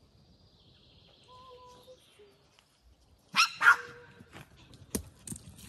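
Small fluffy dog barking twice in quick succession, about three and a half seconds in.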